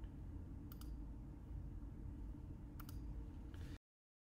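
Faint room tone with a low hum and a few brief clicks about a second in and again near three seconds in. The sound then cuts out to dead silence for the last half second.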